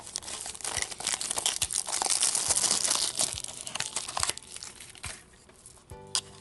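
Plastic wrapping crinkling and tearing as a toy blind box is unwrapped by hand: a dense run of crackling that is loudest in the middle and thins to a few light rustles and clicks over the last couple of seconds.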